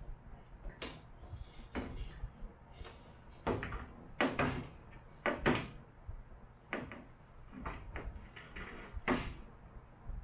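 Aluminium radiator with twin electric fans being set and shifted into a truck's front frame: a run of irregular knocks and clunks, the loudest in the middle and one more near the end.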